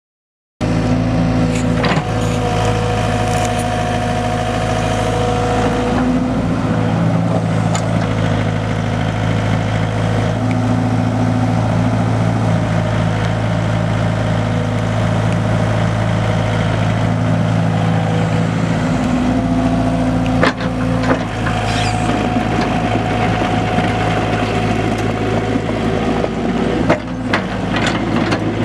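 Komatsu PC75UU-2 compact excavator's four-cylinder diesel engine running steadily while the boom, arm and bucket are worked, with a hydraulic whine that comes and goes and a few sharp knocks in the last third.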